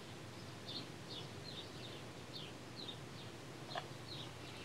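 A bird chirping over and over, short high downward-sliding chirps about twice a second, over a steady faint background hiss; a single brief click a little before the end.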